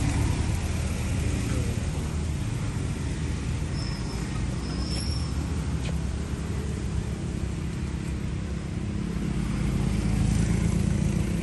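Steady low hum of a motor vehicle engine running, getting a little louder near the end. Two brief high squeaks come about four and five seconds in.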